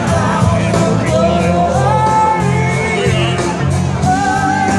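A live blues-rock band playing: electric guitars, horns and bass over a steady drum beat, with voices singing.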